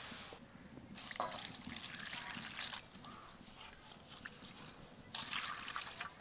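Water being poured into a kadai (wok), splashing and trickling in two spells: one about a second in, and another near five seconds in, with dripping between.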